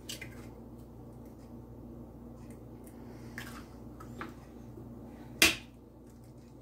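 An egg cracked against the rim of a mixing bowl: one sharp crack about five and a half seconds in, after a few faint taps and clicks, over a low steady hum.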